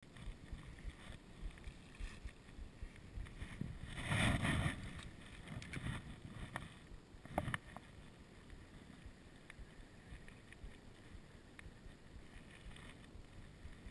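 Faint wind and handling rustle on the microphone, with a louder brief rustle about four seconds in and a sharp click about seven and a half seconds in.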